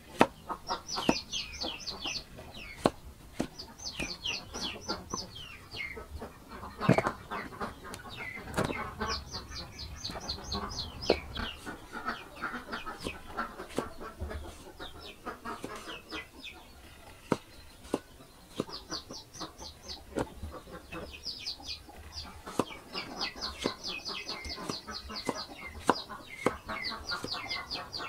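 Cleaver chopping tomatoes on a wooden chopping block: sharp single chops at an uneven pace. Under them, birds call in bursts of rapid high chirps every few seconds.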